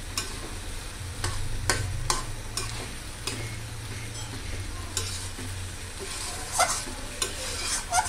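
Mutton, onions and spice paste sizzling as they are fried down in a metal kadai, stirred with a spatula that scrapes and knocks against the pan repeatedly.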